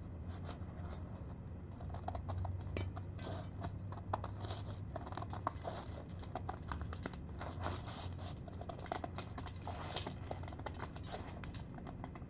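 Scissors snipping through a sheet of paper, a long irregular run of short cuts with paper rustling, over a steady low hum.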